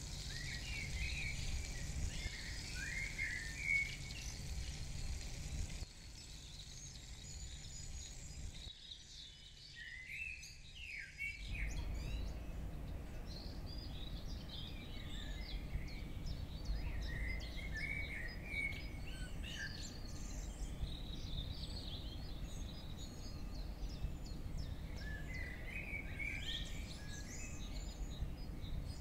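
Birds chirping and singing in many short calls, over a low outdoor background rumble that drops away for a few seconds in the middle.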